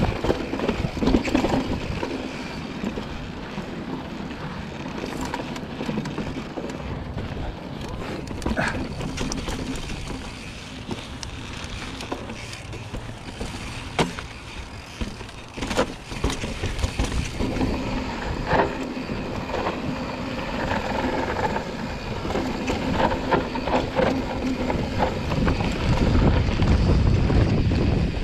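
Mountain bike descending a rocky dirt trail: a steady rush of tyres on dirt and gravel, broken by sharp knocks and rattles as the bike hits rocks and bumps. Near the end a low rumble of wind on the microphone grows louder as the bike picks up speed on the open dirt road.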